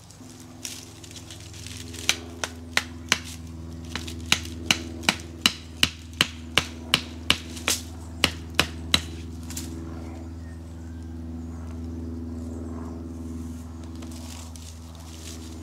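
Tent pegs being hammered into the ground: a run of about eighteen sharp strikes, two or three a second, that stops about nine seconds in, over a steady low hum.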